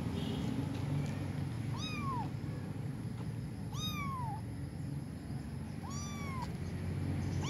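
A kitten meowing: three high-pitched meows about two seconds apart, each rising and then falling in pitch, with a fourth starting right at the end.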